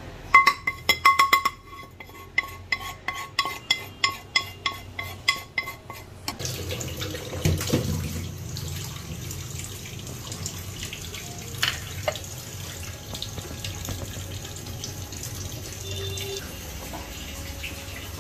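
A run of sharp ringing taps that slow and fade over about six seconds, then a steady wet squelching as blended taro-leaf paste, onion and ground spices are mixed by hand in a terracotta bowl.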